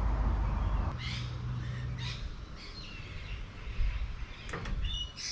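Birds calling, a series of short chirps and caws, over a low rumble that stops about a second in; a couple of sharp metallic clicks near the end.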